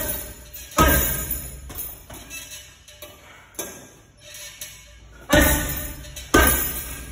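Gloved punches landing on a hanging heavy bag: several hard, irregularly spaced thuds, each followed by the bag's hanging chain jingling as it swings.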